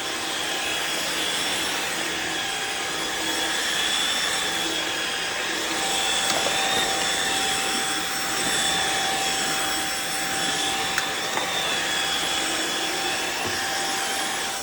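Riccar R70 cordless wet-dry floor washer running: a steady motor whine with its brush-roll noise, swelling and easing slightly as it is worked over the floor, with a couple of faint clicks.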